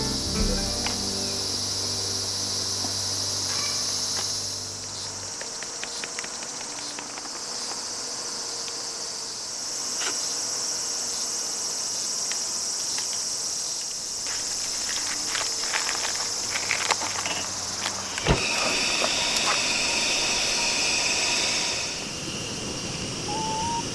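Crickets and other insects chirping in a steady, high-pitched chorus, with scattered small clicks and taps over it.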